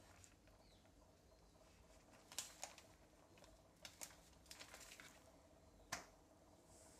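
Faint crinkling and crackling of a thin polythene sheet as a hand-patted jowar thalipeeth is peeled off it: a few scattered crackles from about two seconds in, the sharpest near the end.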